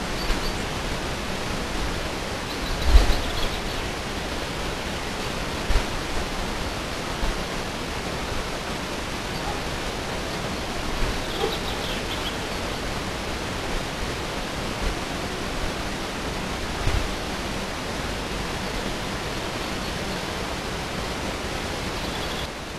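Steady hiss of a volume-boosted outdoor recording, mostly the recording device's own noise, broken by a few brief low thumps, the strongest about three seconds in.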